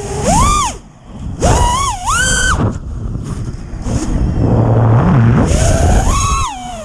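FPV racing quadcopter's brushless motors and T-Motor 5138 propellers whining, the pitch climbing and falling sharply with each throttle punch. The motor sound nearly drops out twice where the throttle is cut, leaving a rush of air, before climbing again near the end.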